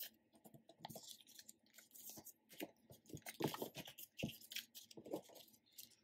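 Hands picking up and stacking glossy photocards and paper message cards: a run of small rustles, slides and taps of card on card and on the table, busiest about three and a half seconds in.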